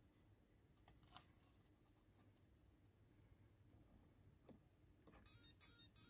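Faint clicks from fingers handling the micro RC crawler's wiring, then, near the end, a brief burst of high-pitched electronic chirping as the crawler's electronics are switched on.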